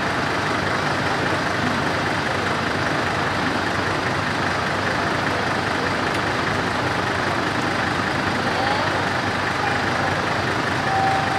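Heavy truck engine idling steadily, a constant dense rumble without a siren.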